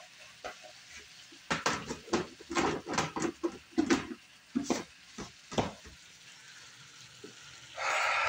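A spatula stirring and scraping in a cast iron skillet of shrimp and spinach, a run of short clinks and scrapes over the food's faint steady sizzle. A brief louder burst of noise comes near the end.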